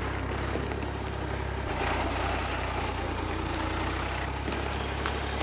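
Mercedes Unimog U1700L truck's diesel engine running steadily at low revs while crawling off-road; its note steps up slightly a second and a half in.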